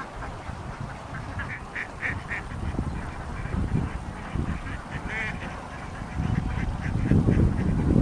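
Several domestic ducks quacking in short, repeated calls, with a quick run of them about two seconds in. The quacking gets louder in the last second or so.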